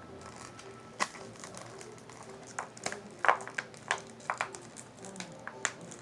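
Small plastic slime containers being handled: a dozen or so scattered taps and clicks, a few with a short ringing ping, the loudest a little past three seconds in.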